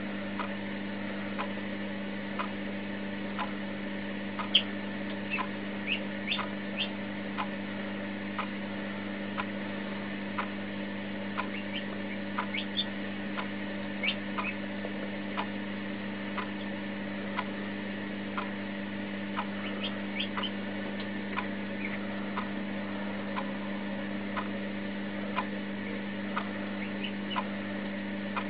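Newly hatching Marans chick peeping in short, high cheeps that come in small scattered groups. Under them are a steady low hum and a regular tick about once a second.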